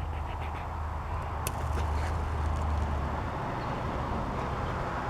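A die-cast Matchbox toy vehicle rolling along a toy track with a steady low rumble, and one sharp click about a second and a half in.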